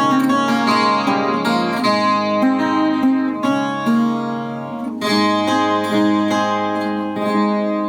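Chilean guitarrón, the 25-string Chilean folk guitar, played solo: quick plucked notes over ringing bass strings, then a final chord about five seconds in that rings on and starts to fade near the end.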